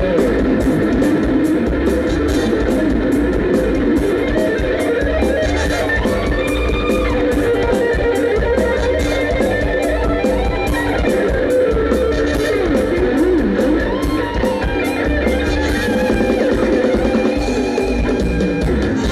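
Live Isan stage band playing an instrumental passage: electric guitar over drum kit and bass, with a steady beat.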